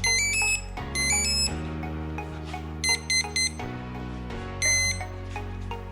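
Electronic speed controller start-up tones played through the hovercraft's small brushless motor as the battery is connected. Two quick rising runs of beeps come near the start, then a group of short beeps about three seconds in and a single beep near five seconds, signalling the ESC is powered and arming. Background music with a steady low bass runs underneath.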